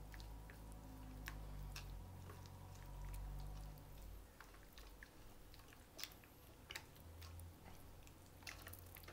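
Faint wet squelching and light clicks of a hand mixing raw chicken pieces into an egg, cornflour and chilli-powder marinade in a bowl, over a low steady hum.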